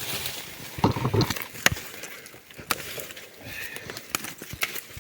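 Irregular sharp clicks with a few dull knocks about a second in: objects being handled and moved about at a campsite.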